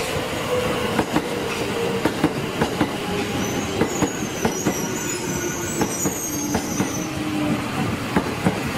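Tokyo Metro 2000 series subway train running past. Its wheels clack irregularly over the rail joints, and a low whine slides slightly down in pitch. A thin, high wheel squeal wavers in and out in the middle.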